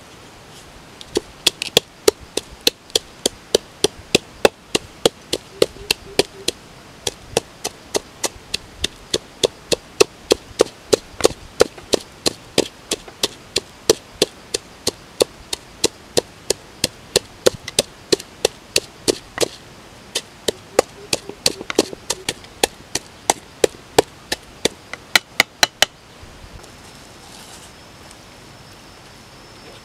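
A pestle pounding salt and aromatics into a paste in a coconut-shell bowl: sharp, even knocks at about three a second, stopping a few seconds before the end.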